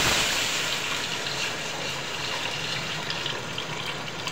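Water pouring in a stream from a jug into a large aluminium pot over hot ghee and browned onions, a steady gushing hiss that slowly gets quieter as the pot fills, with small crackles of the oil settling under the water.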